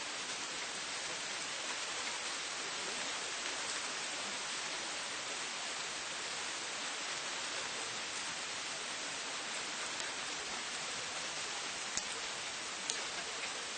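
Steady rain falling, an even hiss, with two sharp drop taps near the end.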